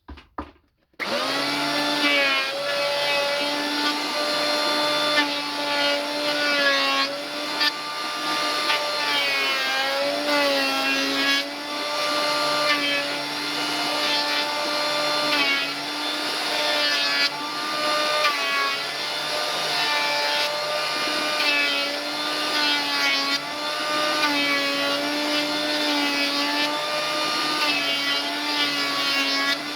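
Big wood planer switching on about a second in and running loudly while boards are planed, its motor whine sagging in pitch and recovering again and again.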